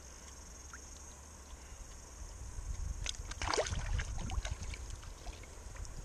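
River water splashing and sloshing from about three seconds in as a rainbow trout is released by hand, over a steady high drone of cicadas.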